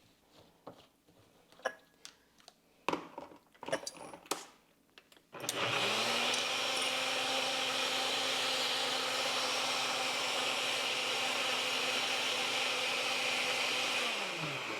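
A few light knocks and clicks, then about five seconds in a countertop blender motor spins up and runs steadily for about nine seconds, blending protein powder into a fruit-and-yogurt smoothie. It winds down near the end.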